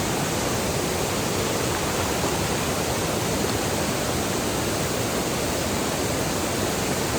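Steady rush of river water pouring through a waterfall and current, an even unbroken noise.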